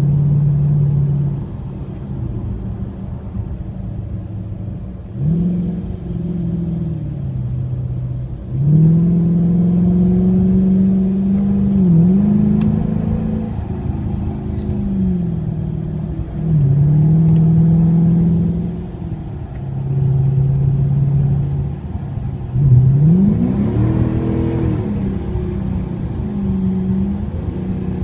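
Dodge Charger R/T's 5.7-litre HEMI V8 exhaust, mid mufflers deleted, with the car accelerating hard out of turns again and again. The pitch climbs in repeated surges, with a quick dip and re-rise about twelve seconds in and the biggest rise near the end, and settles lower between pulls.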